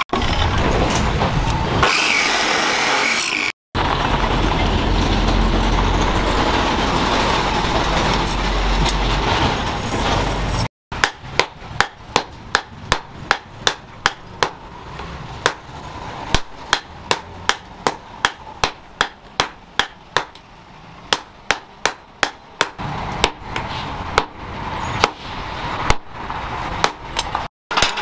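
An abrasive cut-off saw cutting leaf-spring steel, then several seconds of steady machine noise with a low rumble. From about eleven seconds in, a hammer striking red-hot steel on a post anvil, sharp ringing blows about two a second.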